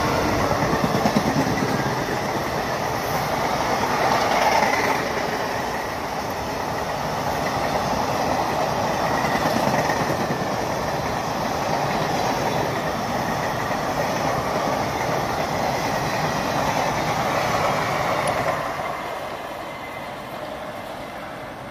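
Two express trains made up of ICF coaches passing each other at speed on adjacent tracks: a steady rumble of wheels running on the rails. It fades as the trains move off, about three quarters of the way through.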